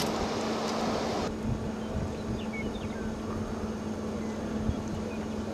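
Storm-chase van driving slowly along a muddy, hail-covered dirt road: a steady engine hum over a low rumble, with a hiss that cuts off abruptly about a second in.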